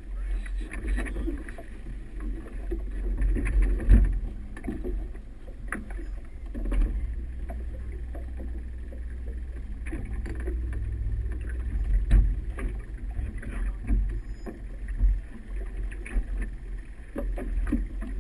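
Outboard motor on a small motorboat running at low speed as the boat manoeuvres. It makes a steady low rumble, with a few sharp knocks along the way.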